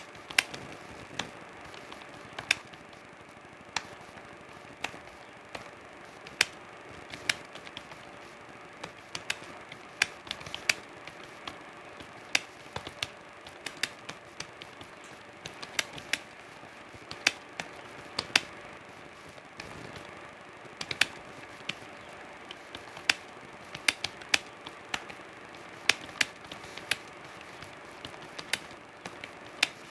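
Computer keyboard being typed on: sharp key clicks at an uneven pace, a few a second, in short runs with brief pauses, over a faint steady hum.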